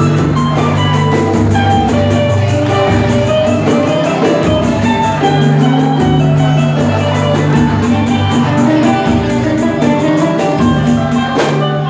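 Instrumental band music with a cavaquinho, bass and drums playing steadily, no singing.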